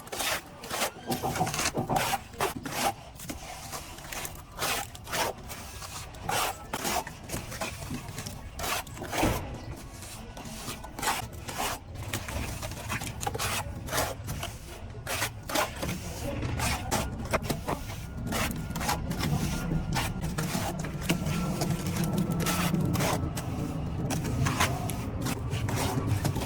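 Irregular scraping and tapping of plastering tools, with music underneath that grows louder in the second half.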